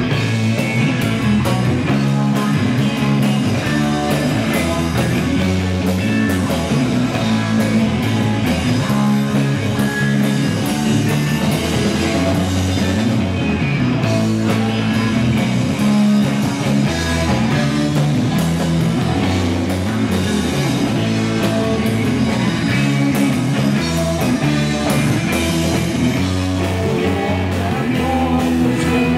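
A rock band playing live at a steady, full volume: electric guitars, electric bass and drums.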